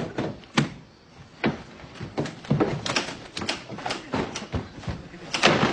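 A door being worked and a string of irregular knocks and thuds as a man stumbles and bumps about, drunk, with the loudest clatter near the end.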